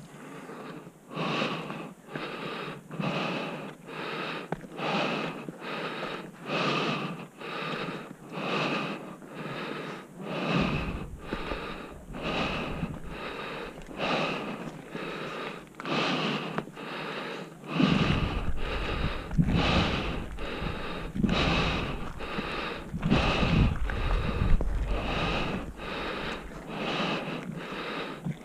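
Heavy, rhythmic panting close to the microphone, in a quick, even rhythm: a hiker breathing hard from the exertion of climbing a steep granite slope. Wind buffets the microphone from a little past halfway through.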